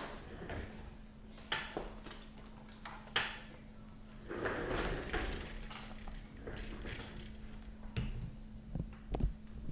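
A few light knocks and clicks and a short stretch of soft rustling, from objects being handled, over a steady low hum.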